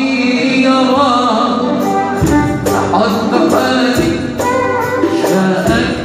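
Moroccan malhoun ensemble playing an instrumental passage, with a bending melody on violin and other melody instruments. Drum and hand-percussion beats come in about two seconds in, at roughly two strokes a second.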